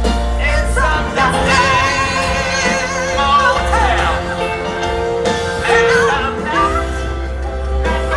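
Live band music with a singer holding long, wavering notes without clear words over a steady bass line.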